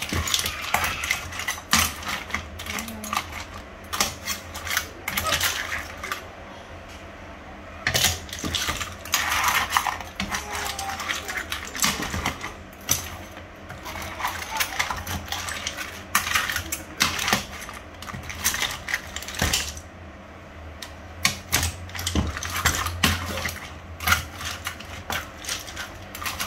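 Hard crab and prawn shells clattering against a metal pan and a metal spatula as the cooked seafood is stirred and turned: a rapid, irregular run of clicks and knocks over a steady low hum.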